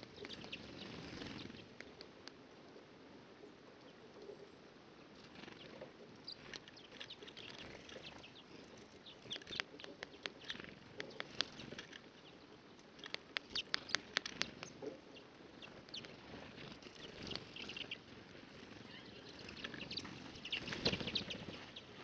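Small birds, a great tit among them, feeding at a plastic tube seed feeder: clusters of quick sharp clicks and taps as they land and peck, with brief high chirps and soft wing flutters in between.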